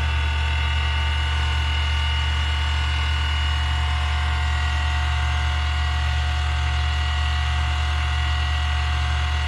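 Electric valve-grinding machine running steadily with an even motor hum and fixed whine, making the 30-degree cut of a three-angle valve job.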